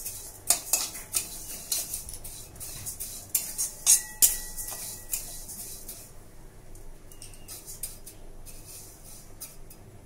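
Metal spatula stirring and scraping raw moong dal around a metal kadai as the lentils are lightly roasted over a medium flame: rapid clinks and scrapes of metal on metal with the grains rustling. The strokes are busy for the first six seconds or so, then fewer and softer.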